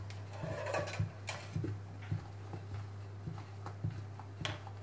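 A spatula folding beaten egg whites into cake batter in a mixing bowl: soft, uneven strokes and light knocks against the bowl, about two a second, over a steady low hum.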